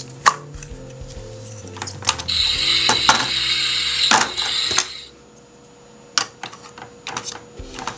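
Pink plastic toy frying pan playing a loud electronic sizzling sound effect for about two and a half seconds, starting a couple of seconds in. Sharp plastic clicks and taps from the toy egg, pan and spatula being handled run through it, over soft background music.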